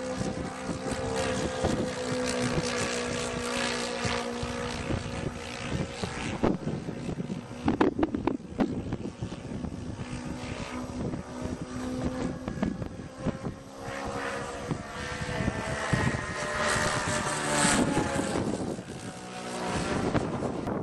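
Engines of a large radio-controlled scale Beech 18 model aeroplane in flight, a steady propeller drone. Late on it grows louder and higher in pitch, then drops in pitch as it passes.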